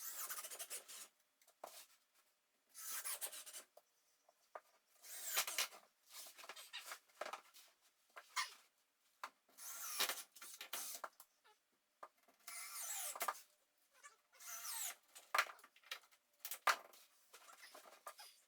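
Hand tool scraping and rubbing in short strokes every second or two, with a few sharp clicks in between: manual work on building material.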